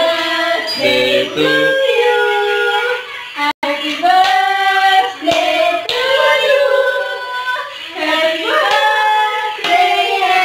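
Several people, women's voices most prominent, singing a birthday song together in long held notes; the sound cuts out for an instant about three and a half seconds in.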